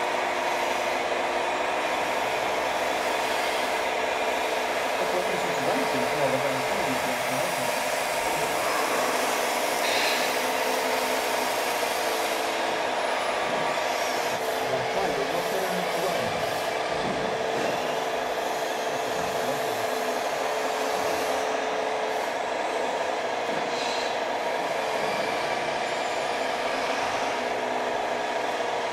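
Hydraulics of a radio-controlled model Liebherr 944 excavator whining steadily while it digs and loads sand, the pitch of the whine shifting now and then as the boom and bucket work.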